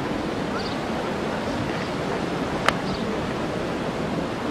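Outdoor ambience dominated by steady wind rushing over the microphone, with faint distant crowd voices and a single sharp click a little past the middle.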